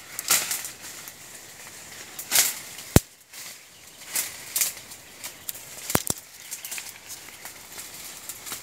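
Leaves and branches rustling and swishing in bursts as people push through dense forest undergrowth, with two sharp snaps, one about three seconds in and one about six seconds in.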